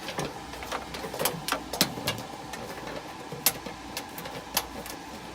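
Scattered sharp clicks and light taps of a stiff wire being bent and threaded through a hole in the furnace cabinet to hold wiring back, over a faint steady hum.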